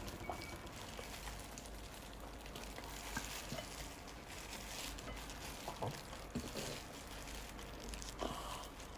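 Quiet table sounds over a steady faint hiss: a scatter of small soft clicks and rustles from handling dishes, utensils or tissue.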